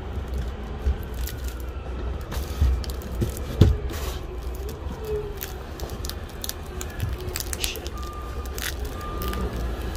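A large cardboard shipping box being heaved and slid into a pickup truck bed: knocks as it drops onto the bed, the loudest about three and a half seconds in, and the scrape and crinkle of cardboard and plastic wrap, over a steady low engine rumble. Near the end an even on-off beeping starts.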